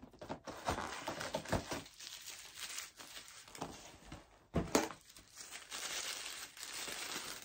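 Paper crinkling and rustling as a paper-wrapped package is handled and pulled from a cardboard advent calendar box, with small clicks and one sharp knock about halfway through.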